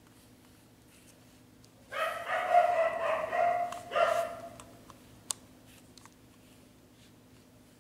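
A dog's voice: one drawn-out high cry of about two seconds with a steady pitch, then a shorter second cry. A single sharp click follows about a second later.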